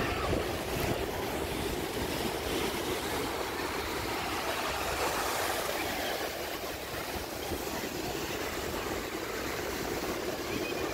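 Sea surf on a beach mixed with wind buffeting the microphone: a steady rushing noise with an uneven low rumble.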